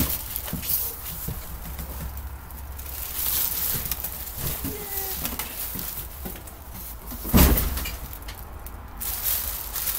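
Plastic wrapping and a cardboard box rustling and crinkling as a mannequin is unpacked, with a loud thump about seven and a half seconds in. A low steady hum runs underneath.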